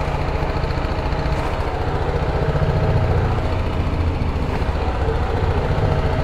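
BMW G310GS's single-cylinder engine idling, a steady low thrum that swells a little about three seconds in.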